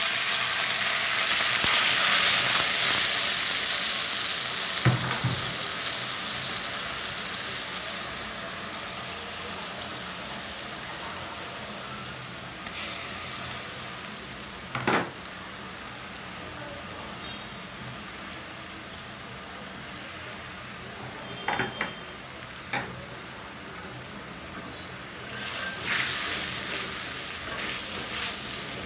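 Water poured into hot oil and sliced onions in a metal wok sizzles loudly, the hiss slowly dying down. Later a metal spatula stirs the pan, with a few sharp knocks and clinks against the wok and a rougher sizzle near the end as a green paste is stirred in.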